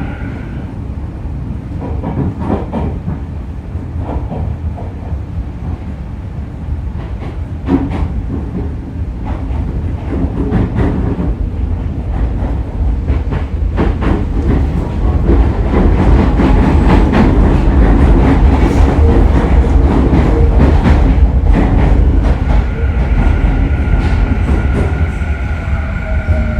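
Running noise inside a Tokyu 3000-series electric motor car: a steady rumble of wheels on rail with repeated clicks over the rail joints, growing louder through the middle as the train runs at speed. Near the end it eases off and a falling whine from the traction motors sets in as the train slows.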